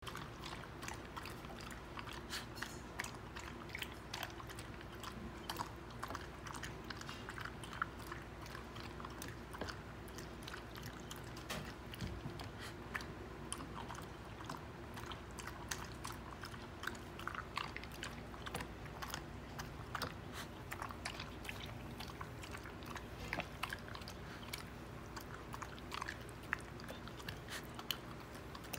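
An old dog crunching and chewing dry kibble out of a ceramic bowl, with many small, irregular crunches and clicks.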